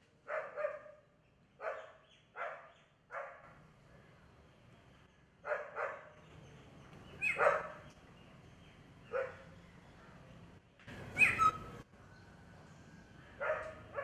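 A dog barking in short separate barks, about nine in all, some in quick pairs, the loudest about eleven seconds in.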